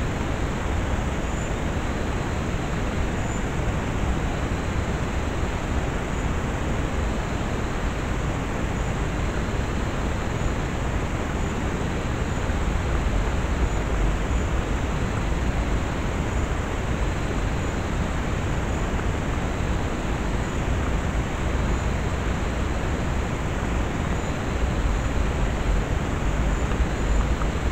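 Steady hiss with a low rumble from a trail camera's microphone, with faint, short, high chirps recurring every second or two.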